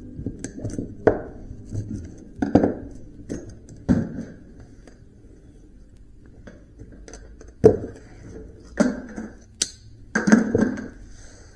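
Copper winding coils being pried out of cut electric motor stators: irregular sharp metallic knocks and clinks with short ringing, with a quieter stretch in the middle.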